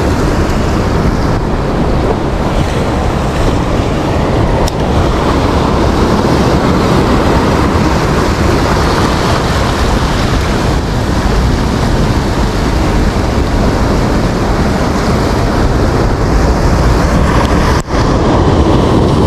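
Ocean surf breaking and washing up the beach, steady and loud, with wind buffeting the microphone.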